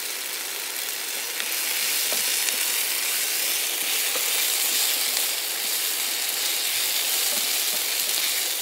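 Chicken, chorizo and onions sizzling steadily in hot oil in a square pan, with a spatula stirring and lightly scraping through them now and then.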